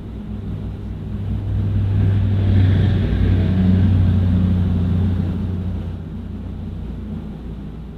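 A low rumbling hum that swells over the first few seconds and fades again toward the end.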